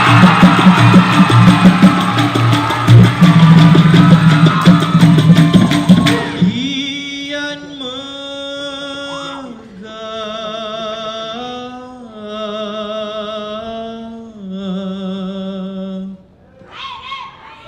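Dikir barat performance: a loud, dense percussion ensemble of drums and sharp strikes cuts off about six seconds in. A solo male singer then holds long, ornamented notes with wavering vibrato, unaccompanied, and another vocal phrase starts near the end.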